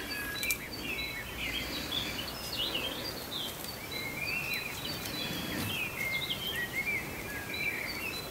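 A bird chirping repeatedly in short calls that rise and fall in pitch, with a few faint clicks.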